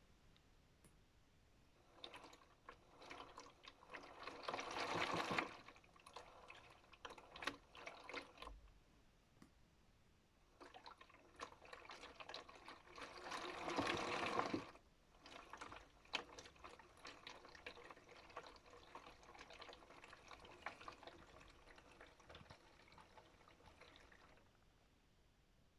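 Modified Miele W1 toy washing machine washing, water sloshing in its small drum with two louder swells of splashing and light clicks and rattles in between.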